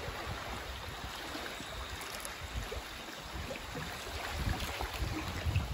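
River water running around a drifting bamboo raft, a soft, even rush.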